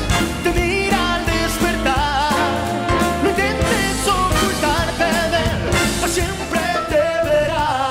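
Song with a singing voice and a steady beat.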